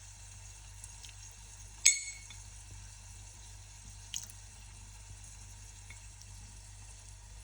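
A single sharp clink of a utensil against a dish about two seconds in, ringing briefly, and a fainter tick a couple of seconds later, over a low steady kitchen background while saffron is being added to the sauce.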